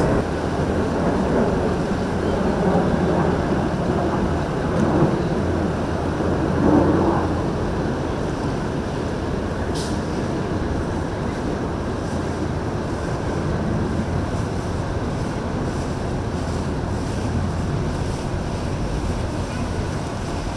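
Motor yacht's engines running with steady water wash, and wind buffeting the microphone.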